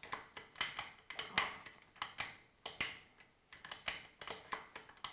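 Repeated sharp metallic clicks of a FLEX airgun's bolt being worked back and forth, about two to three a second. It is a check that the freshly reassembled action, after a valve replacement, moves freely.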